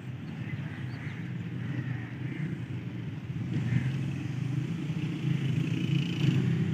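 Steady low engine rumble that slowly grows louder.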